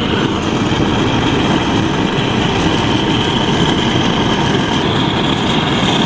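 Handheld gas blowtorch burning steadily, searing the salted, scored skin of isaki (chicken grunt) fillet pieces for aburi.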